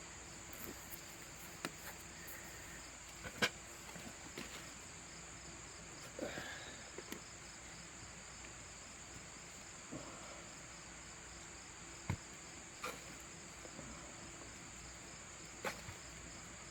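Steady high-pitched insect chorus, like crickets trilling, with a few faint knocks and scrapes scattered through it.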